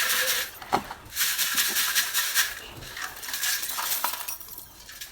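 Roasted multani mitti (Fuller's earth clay) crunched between the teeth: a dense crackle of many sharp little cracks. It breaks off briefly about half a second in and again near the end.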